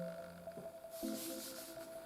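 Background music of sustained notes that step from one pitch to the next about every second.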